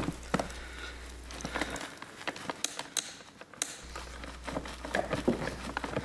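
Light, scattered clicks and rustling as plastic wiring harness connectors are unplugged from a car's power window switch panel: the locking tabs pressed in and the plugs pulled out.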